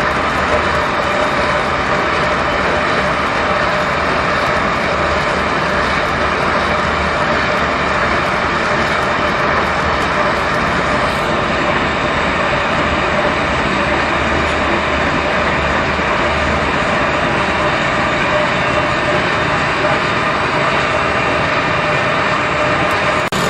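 Planetary concrete floor grinder running steadily with its industrial dust vacuum, the grinding heads working thinset off a concrete floor: a loud, even mechanical drone with steady tones over a dense grinding noise.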